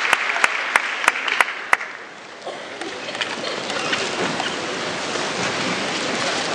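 Audience applause in a hall, with sharp rhythmic beats about three a second that stop about two seconds in. After a brief lull, a steady crowd wash of clapping and noise returns.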